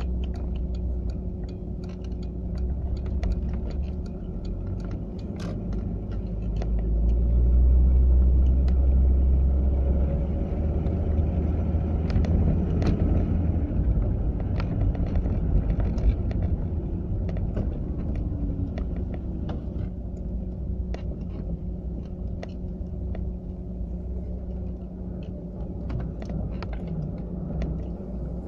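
Volvo 940 driving: a steady low rumble of engine and road, louder from about seven to twelve seconds in, with scattered light ticks over it.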